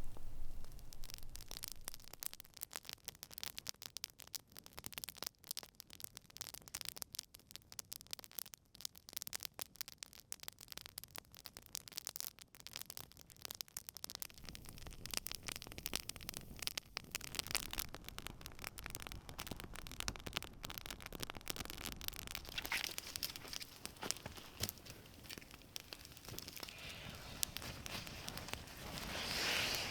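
Campfire crackling, a dense run of small pops and snaps, growing louder and hissier near the end.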